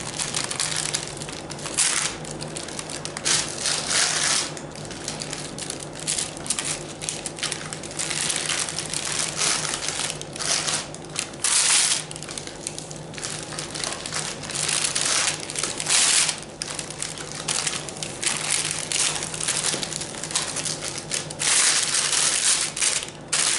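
Wax paper crinkling and rustling in the hands in irregular bursts as a sponge cake sheet is rolled up inside it and the paper is wrapped around the roll.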